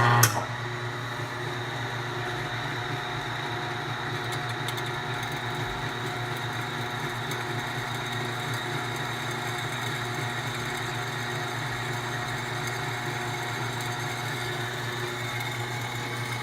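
Milling machine running steadily while drilling a pilot hole into a broken-off bolt, a constant motor hum with a thin metallic whine.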